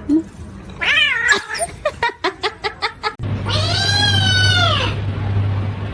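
Domestic cat vocalising: short wavering meows, a quick run of clicks, then one long yowl that rises and falls in pitch.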